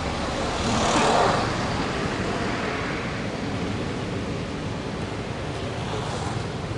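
A road vehicle passing, swelling to its loudest about a second in and fading, over steady traffic background noise.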